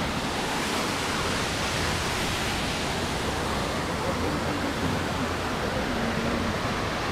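Steady rushing of a mountain waterfall plunging down a rock face into a pool.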